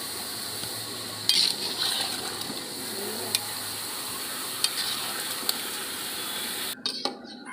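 Metal ladle stirring basmati rice into boiling biryani liquid in a metal pot: a steady hiss from the boiling pot, with a few sharp clinks of the ladle against the pot. The hiss cuts off suddenly near the end.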